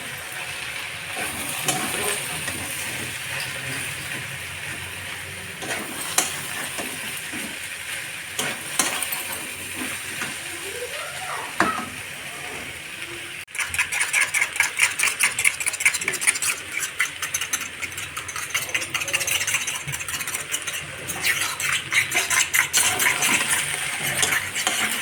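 Cabbage and beans frying in a pan, a steady sizzle with a spatula stirring and clicking against the pan. About halfway through, the sizzle turns suddenly louder and more crackly.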